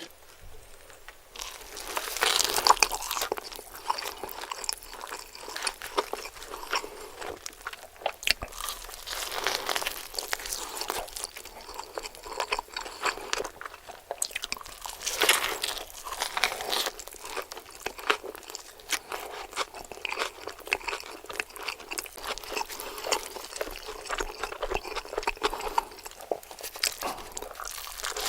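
Close-miked eating of a burger: bites and chewing with dense, crisp crunching, the loudest bites about three seconds and fifteen seconds in.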